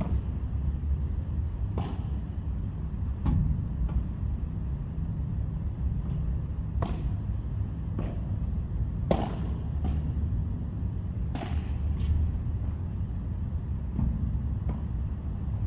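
Padel rally: sharp pops of rackets and walls striking the ball, about eight of them at irregular spacing a second or two apart, over a steady low rumble and a constant high-pitched whine.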